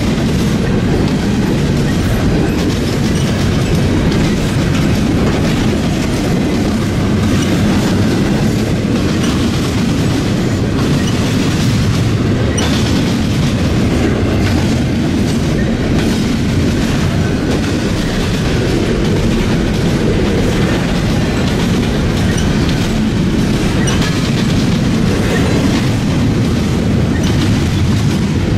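Double-stack intermodal well cars loaded with shipping containers rolling past: a steady, loud, low rumble with scattered clicks from the wheels on the rails.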